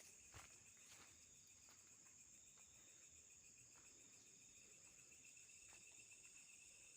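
Faint, steady chorus of night insects, crickets trilling high, with a few soft clicks in the first second.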